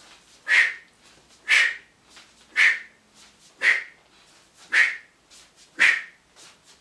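A man's sharp, hissed exhalations, one on each rep of a two-handed kettlebell swing, about once a second, seven in all.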